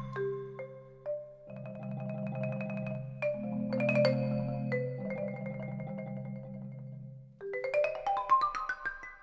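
Background music: struck, ringing mallet-percussion notes over held low bass notes, with a quick rising run of notes near the end.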